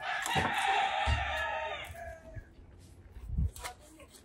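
A rooster crowing once, a single long call of about two seconds at the start, followed by a couple of low thumps.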